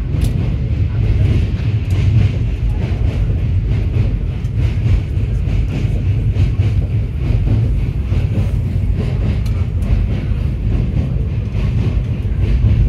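Train running over a riveted steel truss bridge, heard from inside a carriage: a loud, steady low rumble with a light, rapid clicking of wheels over the rails.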